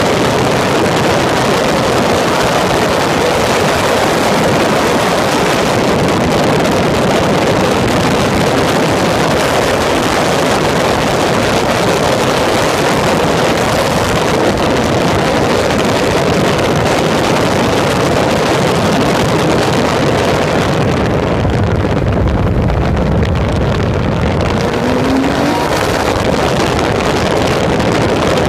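Engine of a Peugeot open-cockpit prototype race car running at speed, heard onboard mixed with heavy wind rush on the microphone. About 21 seconds in, the hiss thins out and a lower rumble comes up as the car slows for a corner.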